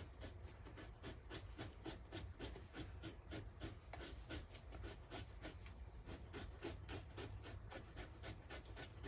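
Victorinox knife blade scraping fat and flesh off a beaver pelt in quick, short, even strokes, about four a second.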